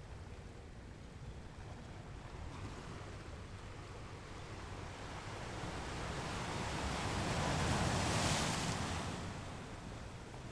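Ocean wave crashing on a rocky beach: the surf builds over a few seconds, breaks loudest about eight seconds in, then falls back.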